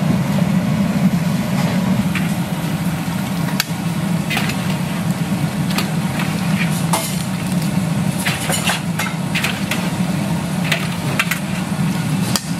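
Gas burner running steadily under a large aluminium stockpot of boiling broth, with scattered clinks and scrapes of a metal bowl against the pot as it is scooped and stirred.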